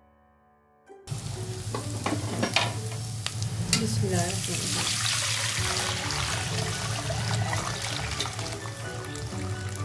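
Minced garlic and ginger sizzling in melted butter in a nonstick pan, stirred with a plastic spatula that knocks and scrapes against the pan; the sound starts abruptly about a second in. Chicken stock is then poured in and the pan hisses and bubbles.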